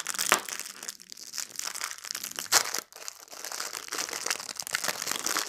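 A fortune cookie's plastic wrapper being crinkled and torn open by hand: continuous irregular crackling with a few louder sharp crackles.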